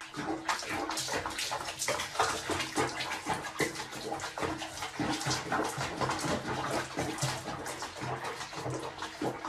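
Water splashing and sloshing in a small plastic basin as a cat paddles and shifts about in its bathwater, in many short irregular splashes.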